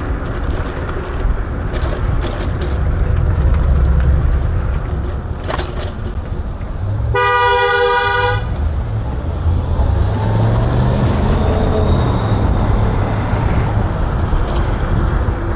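A single horn toot lasting about a second, over steady wind and riding rumble from an electric scooter on the move, with a few sharp knocks.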